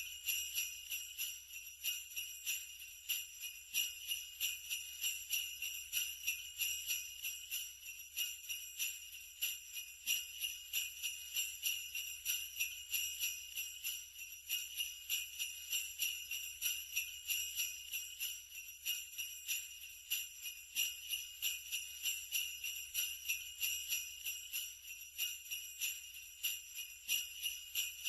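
Sleigh bells shaken in a steady, quick rhythm, a continuous bright jingling.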